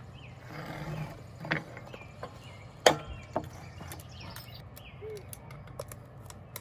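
A cast iron pie iron being folded shut and handled on a wooden bench: a few sharp knocks of iron on iron and wood, the loudest about three seconds in, then light metal clicks at the handles.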